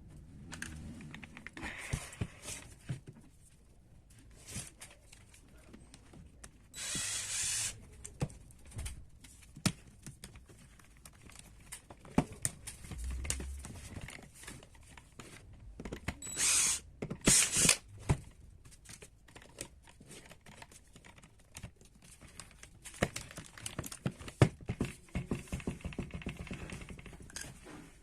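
Irregular clicks and knocks of tools and small parts being handled while an angle grinder is worked on, with a hiss lasting about a second about 7 s in and two shorter hisses around 16 to 17 s.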